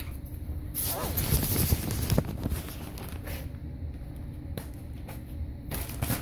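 Handling noise while a magnetic shower curtain weight is fitted: rustling for a second or two, then a few short sharp clicks, over a steady low hum.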